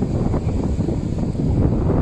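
Strong sea wind buffeting the microphone, a steady low rumble.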